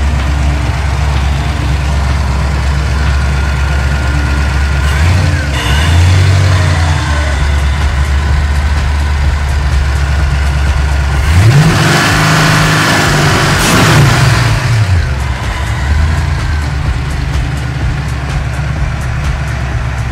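1988 Mustang GT's 5.0 L (302) small-block Ford V8, with a Trick Flow cam, long-tube headers and Mac mufflers, idling on Holley Terminator X fuel injection. It is blipped briefly about five seconds in, then revved harder about eleven seconds in, the revs rising and falling back to idle a few seconds later.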